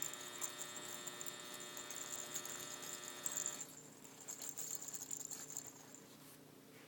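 A steady, even hum with many overtones, stopping about three and a half seconds in, with faint crackle behind it.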